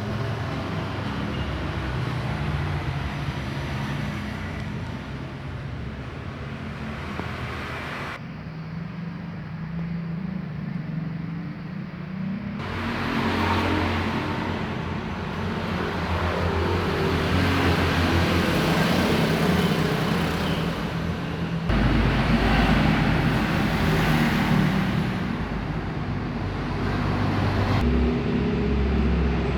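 Four-stroke Matrik grass-cutter engine running steadily, its note and loudness shifting abruptly several times.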